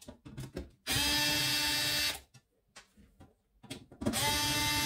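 Small cordless electric screwdriver running in two bursts of about a second and a half each, backing out two screws that hold the welder's circuit board. Small handling clicks come between the runs.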